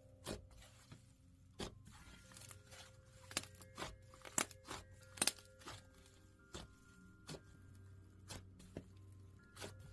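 Slime being played with, giving irregular sharp clicks and pops, the loudest about halfway through, over soft background music with long held notes.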